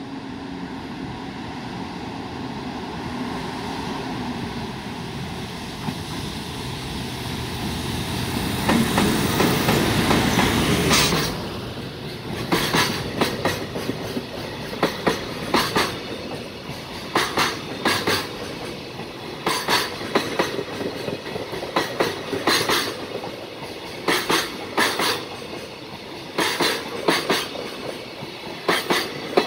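JR Freight EF510 'Red Thunder' electric locomotive hauling a container freight train, approaching and passing, growing louder to a peak about ten seconds in. After that the container wagons roll by with a steady clickety-clack of wheels over rail joints: sharp clicks in close pairs, a pair every couple of seconds.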